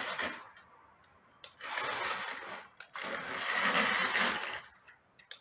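Small electric drive motor in the base of a remote-control inflatable BB-8 toy whirring in two bursts of about a second and a half each as the remote buttons are pressed.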